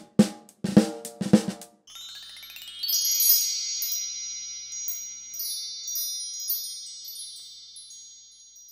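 A few short closing music hits, then a wind-chime glissando sweeping upward, its high tones ringing on and slowly fading.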